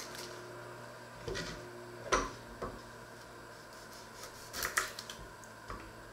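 A small kitchen knife knocking and scraping on a wooden cutting board as an onion is handled, trimmed and peeled by hand: a handful of scattered knocks and clicks, the loudest about two seconds in, over a steady low hum.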